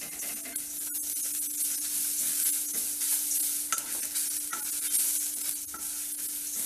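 Wooden spatula stirring and scraping spices, dal and grated coconut being dry-roasted in a stainless steel kadai: a steady dry rustling hiss with occasional sharp taps of the spatula against the pan, over a steady low hum.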